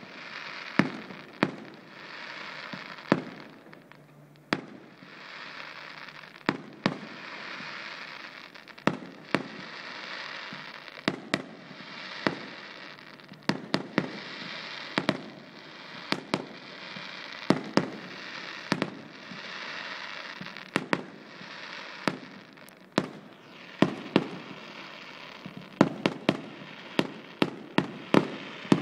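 Fireworks display: a long run of sharp shell bursts, coming thicker near the end, over a continuous crackling hiss that swells and fades every couple of seconds.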